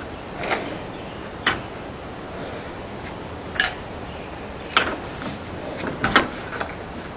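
A black bear's claws knocking and clinking against the rear door and latch of a metal truck-bed canopy as it paws at it trying to get in: about seven sharp, irregular knocks, several close together near the end, over a steady hiss.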